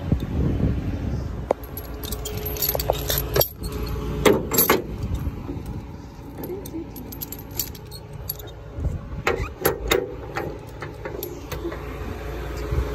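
Heavy steel lifting chains of a skip lorry clinking and rattling against each other and the steel skip as they are handled, in two spells, the second about nine seconds in, over the lorry's engine running steadily.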